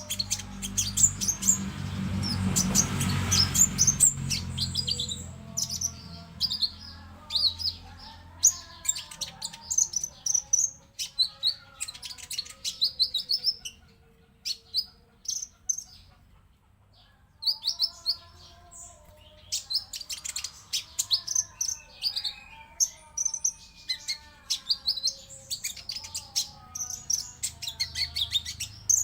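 Konin (kolibri ninja sunbird) song: rapid runs of thin, sharp, high chirps and twitters, breaking off for a few seconds just past the middle. A brief rushing noise comes in about two seconds in.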